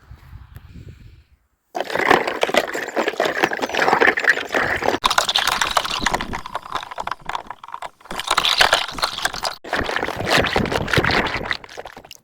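Dense crackling and gurgling of water and bubbles, starting abruptly about two seconds in and running in stretches broken by brief gaps.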